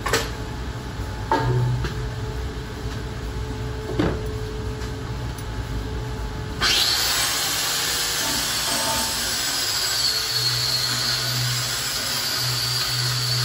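A few handling knocks, then about six and a half seconds in an angle grinder starts on the welded steel plate and runs steadily, a loud hiss with a high whine.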